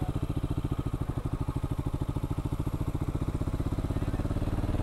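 Motorcycle engine idling with a steady, rapid pulse.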